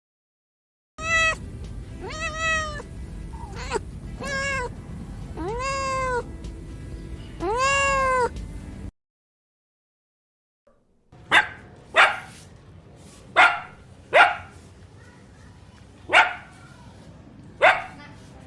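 A domestic cat meowing six times, each call rising and falling in pitch. After a brief pause, a different clip brings six short, sharp animal calls spaced about a second apart.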